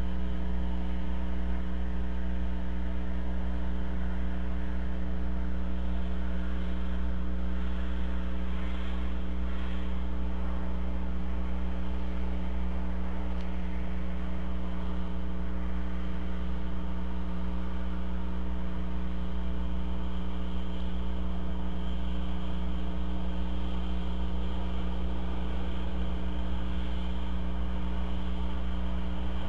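Steady electrical hum in the nest camera's audio feed, made of several steady tones, with a faint hiss above it that swells slightly a few seconds in.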